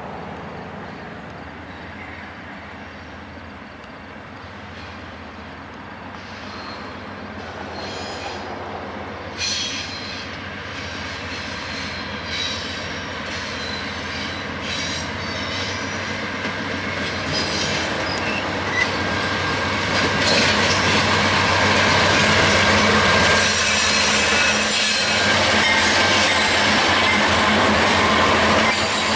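Several GE diesel-electric locomotives leading a freight train approach and pass close by. The engines run steadily while the sound grows louder, and the steel wheels' rumble and screech on the rails take over as the locomotives go by near the end.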